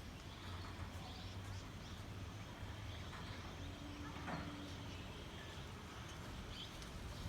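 Rural outdoor ambience: scattered short high bird chirps over a steady low rumble, with a brief low hum near the middle.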